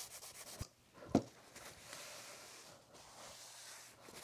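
A gray Scotch-Brite pad scrubbing the painted metal top of a machine in quick back-and-forth strokes, which stop within the first second. A short knock follows about a second in, then faint soft rubbing as a rag wipes the surface.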